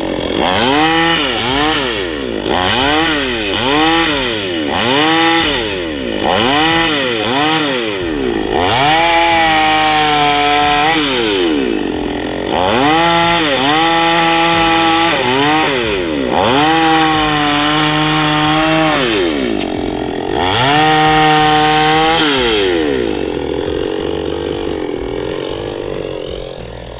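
Petrol chainsaw engine revved up and down again and again: a run of quick blips at first, then several revs held at high speed for about two seconds at a time, each falling back toward idle. It settles to a lower running sound near the end.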